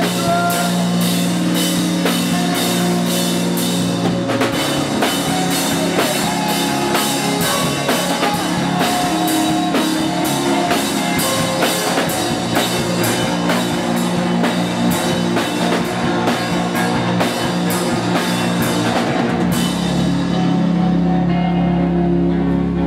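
Rock band playing live: drum kit keeping a steady beat on the cymbals under bass and guitar. About twenty seconds in the drums stop, leaving held bass and guitar notes ringing.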